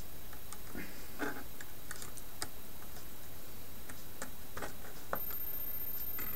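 Faint, irregular small clicks and taps from handling wiring: red and black power leads being fitted into the plastic screw-terminal blocks of a RAMPS 1.4 3D-printer control board, over a steady low hiss.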